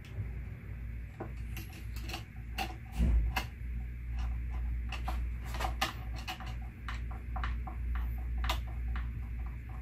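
Hand screwdriver driving a screw through a fender washer and a taped sheet-metal pointer into the telescope base: irregular light clicks and scrapes of metal on metal, with a heavier knock about three seconds in, over a low steady hum.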